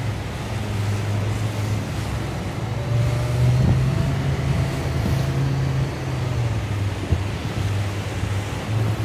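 Boat motor running with a steady low hum that rises a little about three seconds in, over the rushing of churning white water in a dam's tailwater.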